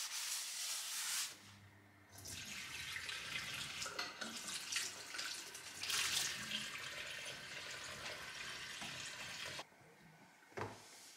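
Water running from a kitchen mixer tap into a stainless steel sink while dishes and a glass are rinsed under the stream. The flow stops briefly about a second in, runs again, and is shut off near the end, followed by a single light knock.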